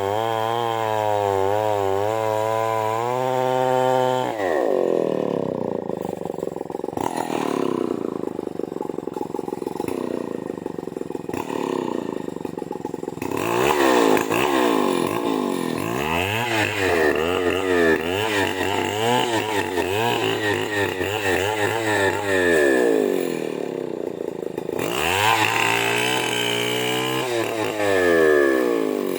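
Two-stroke chainsaw cutting into a large merbau hardwood trunk. Its engine note holds high and wavers under load, drops about four seconds in, then rises and falls over and over as the throttle is worked.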